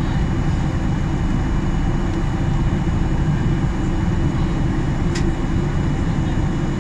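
Steady low rumble of an airliner's cabin noise in flight, the engines and airflow heard from a window seat, with a faint click about five seconds in.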